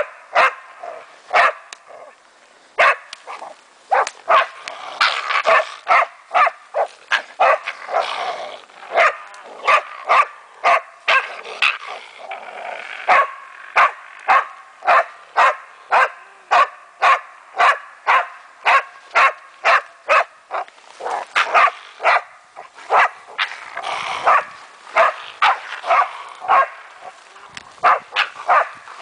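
German Wachtelhund barking at a raccoon dog, sharp barks repeated over and over at nearly two a second, with a few short lulls.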